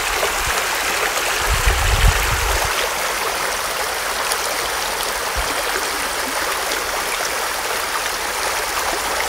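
A small brook running and trickling steadily.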